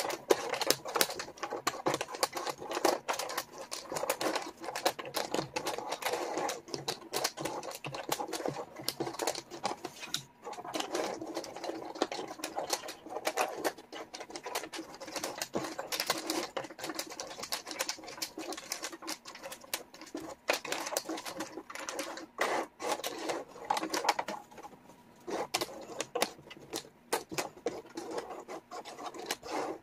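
Small wooden jigsaw pieces clicking and clattering against one another and the table as hands sort and spread them, in a dense, rapid run of clicks.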